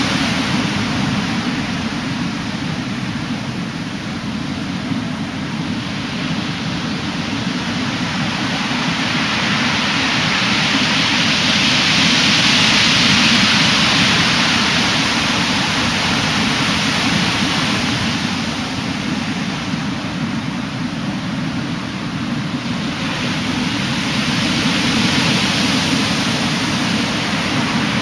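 Heavy storm surf from an approaching typhoon surging onto the shore: a continuous loud rush of breaking water that swells about twelve seconds in and again near the end.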